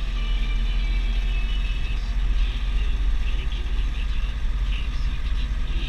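Deutz DX 4.70 tractor's air-cooled four-cylinder diesel running steadily under load, heard from inside the cab while it pulls a slurry tanker that is spreading.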